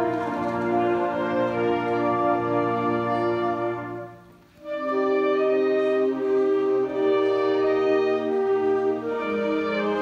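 High school concert band playing held chords. About four seconds in the band stops together for half a second, then comes back in with new chords.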